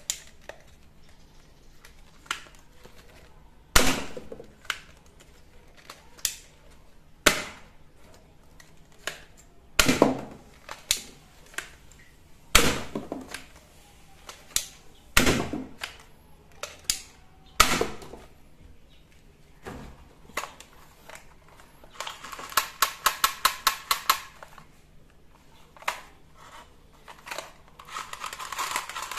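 Toy guns being handled: scattered sharp clicks and knocks, with a quick run of about a dozen clicks, roughly six a second, a little past two-thirds of the way through.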